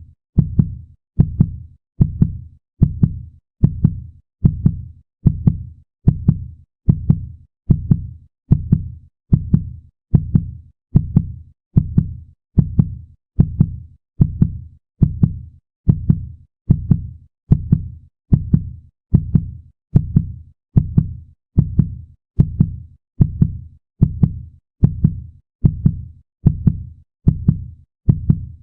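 Human heartbeat, a fast steady rhythm of paired low thumps (lub-dub) repeating evenly without a break.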